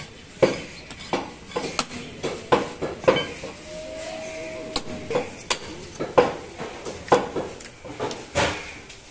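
Butcher's cleaver striking meat on a wooden tree-stump chopping block: about a dozen sharp, irregularly spaced knocks.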